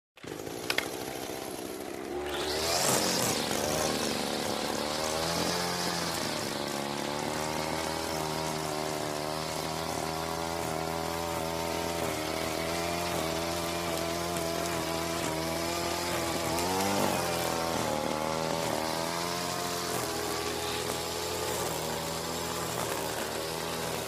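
Small petrol engine of a grass cutter: a couple of clicks, then about two seconds in it revs up and runs on steadily, its pitch rising and dipping as the throttle shifts, with brief higher revs around five and seventeen seconds in.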